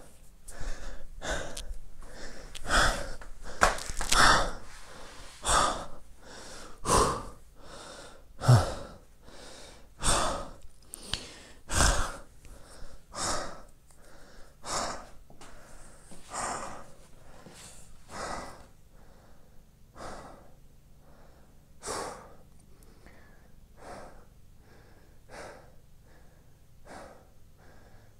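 A man breathing hard in ragged gasps, about one and a half a second at first, then slowing and growing fainter, the pained panting of someone just hurt in the eye.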